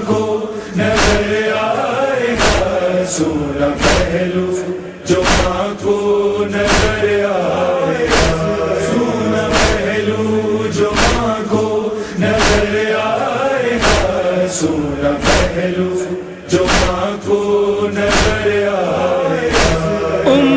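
Noha interlude: a group of male voices chants a refrain without clear words over a steady slapping beat of chest-beating (matam), about one slap every three-quarters of a second.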